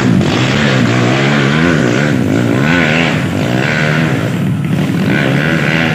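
Dirt bike engines revving hard up and down, the pitch rising and falling over and over with the throttle, as the bikes labour up a muddy slope.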